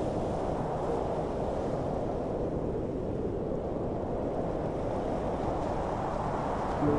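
Steady sea surf and wind noise, an even rush with no distinct wave breaks standing out.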